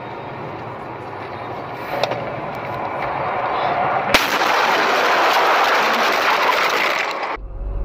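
Car crash heard from inside the car: steady road noise, then a sharp bang about four seconds in as the car leaves the snowy road, followed by about three seconds of loud rushing, scraping noise that cuts off suddenly near the end.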